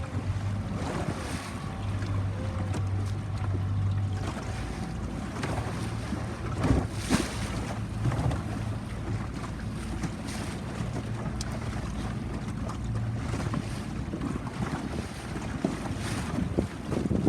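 Small tour boat's engine running steadily, with wind buffeting the microphone and the wash of sea water around the boat. A louder gust or splash comes about seven seconds in.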